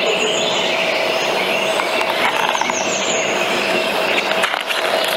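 Steady rushing noise of passing vehicles, with a faint held tone in it.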